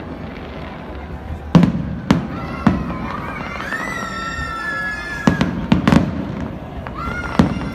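New Year fireworks going off: a string of sharp bangs, with a high steady whistle lasting over a second in the middle and a shorter rising whistle near the end.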